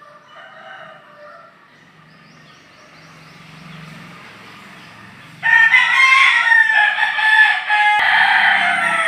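Rooster crowing loudly, starting a little over halfway in, its drawn-out call falling in pitch at the end.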